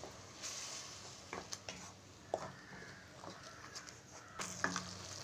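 Wooden spatula stirring a thick tomato masala in a kadai, with soft scrapes and taps against the pan over a faint sizzle of the paste frying in oil.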